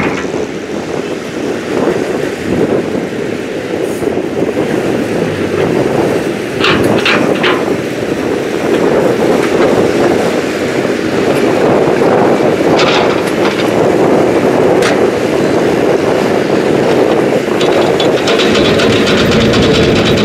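Heavy diesel machinery running steadily: a Kobelco crawler excavator working and a loaded ten-wheel dump truck pulling away, with scattered metallic clanks and rattles.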